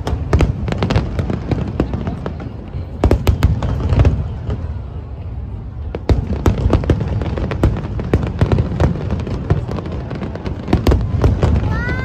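Aerial fireworks shells bursting in rapid succession: sharp cracks and booms over a continuous low rumble. The bangs thin out briefly about halfway through, then pick up again.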